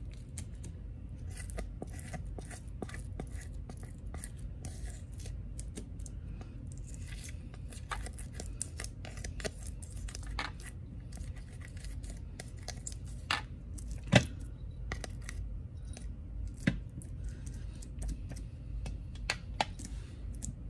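Glossy slime being scraped and peeled off a plastic container lid with the fingers into its tub: irregular small sticky clicks and crackles, with one sharper click about two-thirds of the way through, over a low steady hum.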